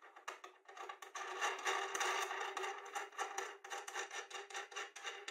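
A steel nut being spun by hand along a threaded rod, the metal threads rasping in quick, uneven strokes with a faint squeal. This is the adjustment of the motor mount's belt tensioner.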